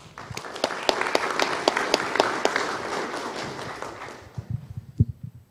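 Audience applauding, building up at once and fading out after about four seconds, followed by a few low thumps near the end.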